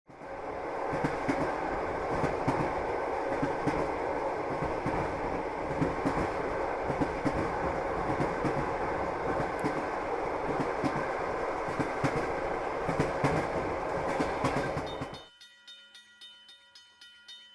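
Train running past on the tracks: a steady rumble with rapid clickety-clack of wheels over rail joints. It cuts off suddenly about fifteen seconds in, leaving faint regular ticking.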